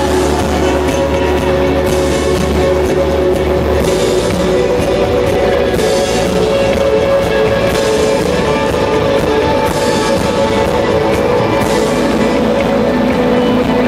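Rock band playing live, an instrumental passage with guitar and drum kit and no vocals. A held low bass note gives way to a new one about four seconds in.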